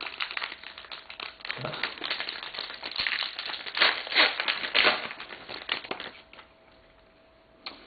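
Crinkling and tearing of a trading-card pack wrapper being opened by hand, a dense crackle that dies down about six seconds in.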